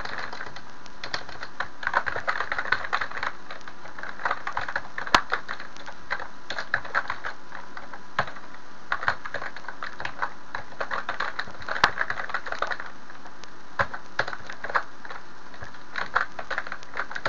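Typing on a computer keyboard: bursts of quick keystrokes with short pauses between them, and a couple of sharper single clicks about five and twelve seconds in, over a steady background hiss.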